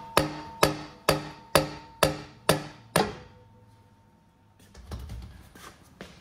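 Dead-blow hammer tapping the input shaft of a Corvette torque tube, about seven even taps at two a second, each leaving the metal tube ringing briefly. The taps drive the shaft and rubber coupler assembly out of the tube. They stop about three seconds in, followed by a pause and some faint clatter.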